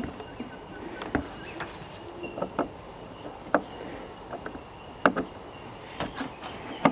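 Scattered small clicks and knocks of a DC charging cable's plug being handled and pushed into the input port of a Bluetti AC2A portable power station.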